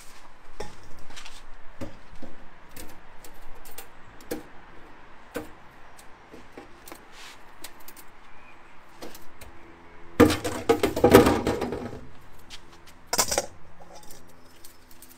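Metal clinking and clattering of a wire rotisserie basket being handled over a stainless-steel bowl as chicken wings are tipped out of it. Scattered small clinks, then a loud burst of clatter about ten seconds in and a shorter one a few seconds later.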